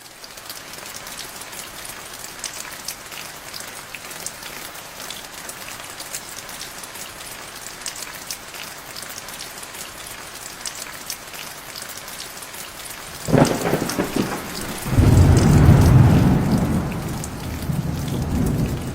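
Steady rain falling, with the tap of individual drops. About two-thirds of the way through, a loud, low roll of thunder breaks in, swells to its loudest a couple of seconds later, then dies away.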